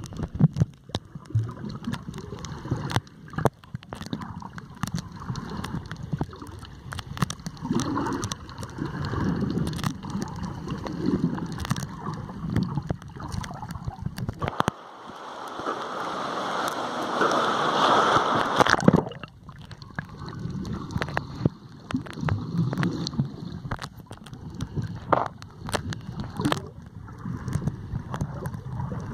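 Underwater sound through a camera housing: muffled swirling and gurgling of water with many small clicks and knocks. About halfway through, a hissing rush lasts for about four seconds.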